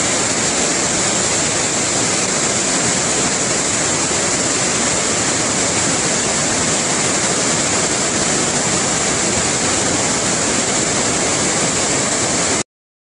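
Waterfall in flood: a heavy, steady rush of white water pouring over rocks, which cuts off suddenly near the end.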